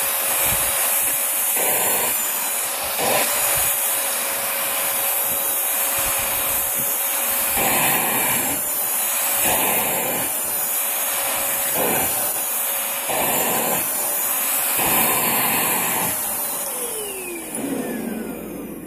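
Bissell 3-in-1 vacuum running with a steady whine, its rush swelling in repeated strokes as the nozzle is drawn over a cat's fur. Near the end it is switched off and the motor winds down in a falling whine.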